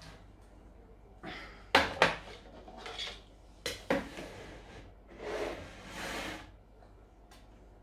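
Plastic kitchenware being handled: a Tupperware steamer bowl of steamed cauliflower set down on the counter with a few sharp knocks, then a serving spoon knocking and scraping in the bowl as the cauliflower is scooped out, with a longer rustling scrape near the end.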